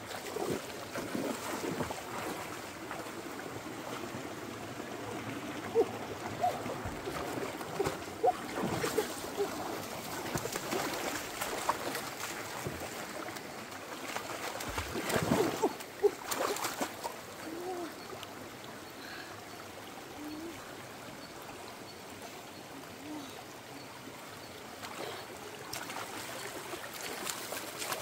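Shallow rocky stream running, with splashing as feet wade through the water and hands plunge in to grab fish. Louder splashes come about six and eight seconds in, and the biggest cluster comes about halfway through.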